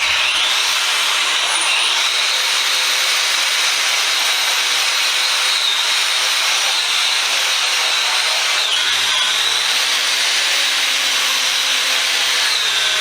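Power wire wheel running steadily against the rusty cast-iron vise body, stripping rust and old paint: a high whine over loud scratchy hiss, the whine dipping briefly a few times.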